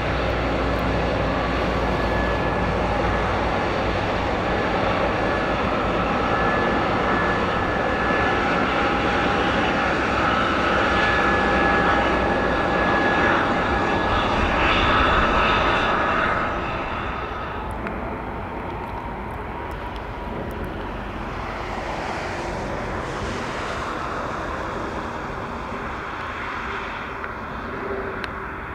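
An Airbus A320neo's CFM LEAP-1A turbofans run at high power during a rejected takeoff, a loud rumble with whining tones as the jet decelerates with its ground spoilers up. About 16 seconds in, the engine noise drops to a lower, steadier level as power comes off.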